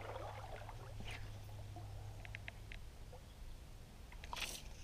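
Faint handling sounds of a fly rod and line: soft rustles and a few small clicks, then a brief swish about four and a half seconds in.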